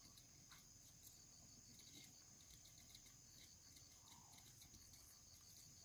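Near silence, with faint insects trilling steadily at a high pitch and a light regular pulsing beneath the trill.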